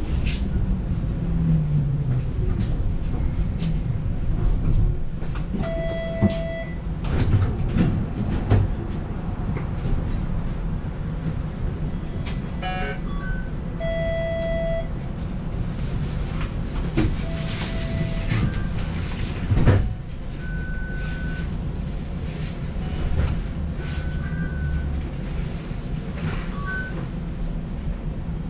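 TTC streetcar running with a steady low rumble. A whine falls in pitch during the first couple of seconds. Short beeps sound three times, with shorter, higher beeps and a few clicks and knocks later.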